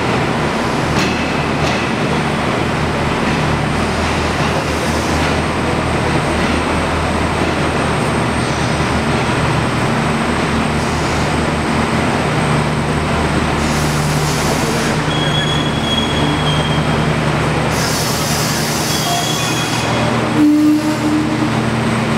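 Renfe Media Distancia passenger train rolling slowly into a covered terminus platform: a steady rumble with a low hum from the train, brief high-pitched wheel squeals about two-thirds through, and bursts of hiss toward the end as it draws up.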